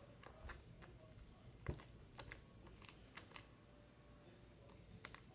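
Faint, scattered clicks and small pops of sticky shaving-cream slime being kneaded by hand, with one louder click about a second and a half in.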